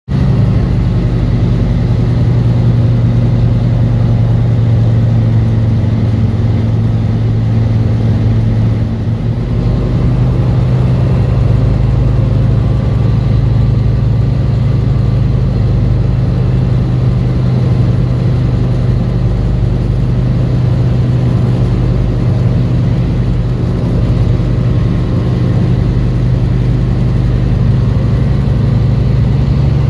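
Tecnam P96 light aircraft's piston engine and propeller running at a steady power setting, a constant low drone with a brief dip in level about nine seconds in.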